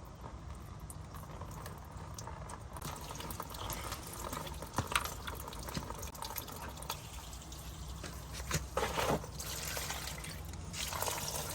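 Engine fluid draining from a 1986 Toyota Corolla, a stream pouring and splashing that grows stronger about three seconds in, with a few small knocks.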